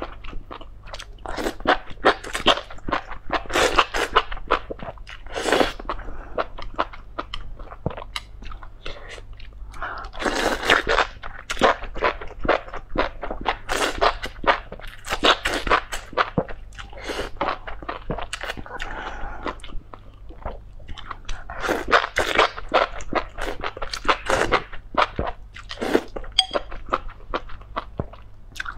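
Spicy enoki mushrooms in chili-oil broth being eaten close to a clip-on microphone: repeated bouts of slurping and wet chewing, with a few short lulls.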